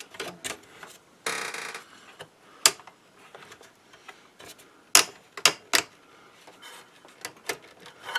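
Scattered plastic and metal clicks and knocks as the small speaker-switch circuit board of a Technics SA-120 receiver is worked loose from its sheet-metal chassis. There is a short scraping rustle about a second in.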